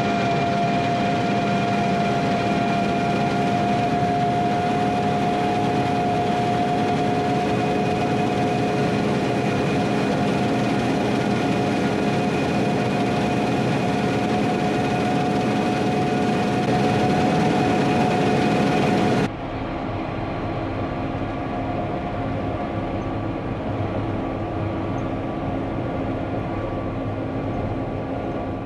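Harvest machinery running steadily, with a constant high whine over its engine noise. About two-thirds of the way through, the sound cuts abruptly to a quieter, duller machine hum.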